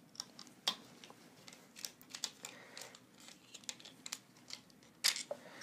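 Faint, scattered clicks and light taps of a small screwdriver and plastic parts being handled while the print-fan parts of a Prusa i3 MK3 extruder are taken off, with a sharper click near the end.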